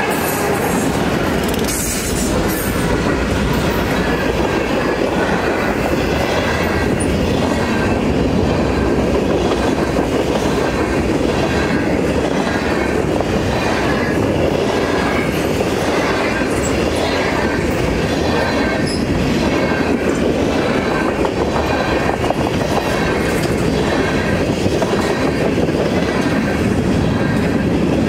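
Freight train passing at about 40 mph over a grade crossing. The GE diesel locomotive's engine goes by at the start, then a long string of freight cars rolls past with a steady rush, the wheels clicking in an even rhythm over the crossing and rail joints, with occasional wheel squeal.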